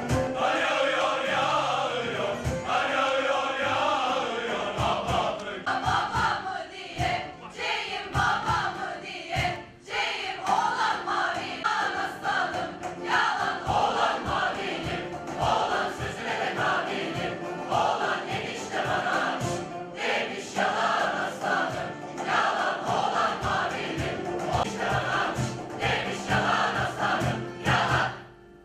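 A mixed choir singing to acoustic guitars and bağlama (long-necked Turkish lute), with a cajón beating a steady rhythm underneath.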